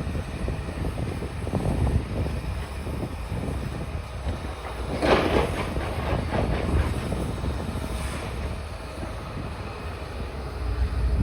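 Steady low mechanical rumble, with a louder rattling, clattering patch about five seconds in.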